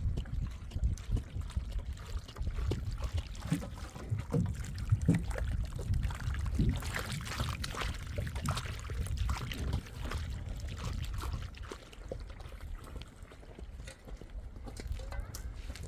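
Wind rumbling on the microphone, with scattered knocks and a stretch of rustling about halfway.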